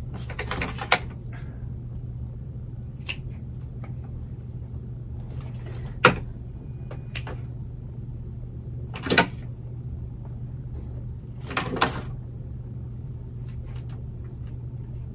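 A few sharp snips of pruning shears cutting through dry orchid roots and papery sheaths, spaced a few seconds apart, with rustling of the dry plant material between them, over a steady low hum.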